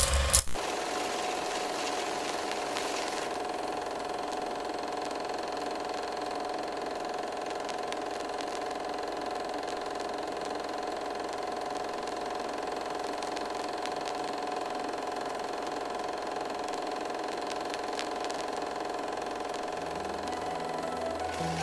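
Film projector running: a steady mechanical whir after a loud clatter that stops about half a second in. Low music notes come in near the end.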